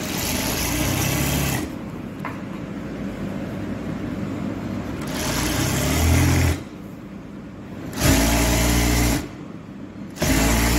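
Industrial sewing machine stitching in four short runs of a second or so each, with a steady lower hum between the runs.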